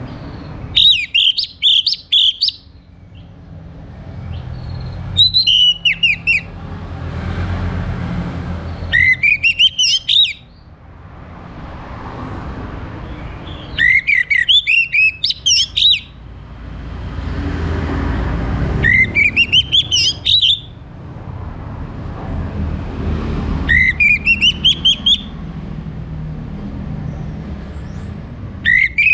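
Orange-headed thrush singing: short phrases of quick notes that sweep upward in pitch, one every four to five seconds. A low rumble swells and fades in the background between the phrases.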